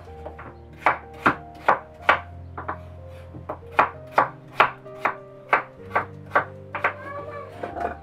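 Kitchen knife chopping peeled potatoes on a wooden cutting board: about a dozen sharp knocks, roughly two a second, with a short pause partway through. Quieter background music plays underneath.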